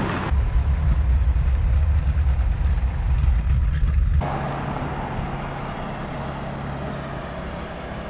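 Motor scooter riding along a road, with heavy wind rumble on the microphone. About four seconds in the sound changes abruptly to a steady low engine hum with road noise.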